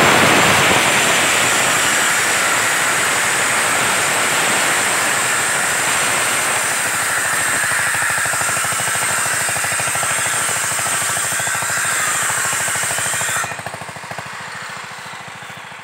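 Chainsaw cutting through a felled palmyra palm trunk at full throttle, with a fast, even engine rhythm. About 13 seconds in, it eases off to quieter running.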